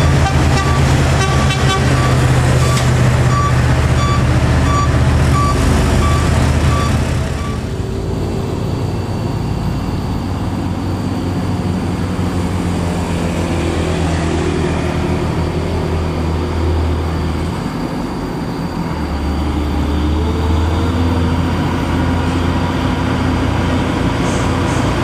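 Nissan Diesel dump truck's diesel engine running loud as it passes close by, with a short beep repeating about twice a second. After about seven and a half seconds this gives way to a Hino 500 truck's diesel engine pulling slowly uphill under load, its note dipping briefly about ten seconds later.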